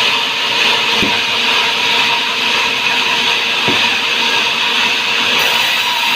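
Sawmill saw running steadily with a continuous mechanical whine and hiss, with two short low knocks, about a second in and a little past halfway.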